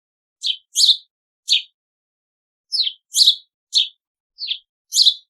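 Sparrow chirping: short, sharp chirps, three in the first second and a half, then a pause of about a second, then five more in quick succession.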